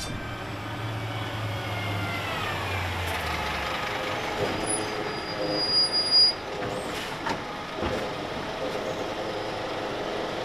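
Diesel engine of a heavy truck passing over the level crossing, its pitch falling as it drives away and fades out after about three and a half seconds. After that, steady street background with a few faint knocks and a brief thin high tone around the middle.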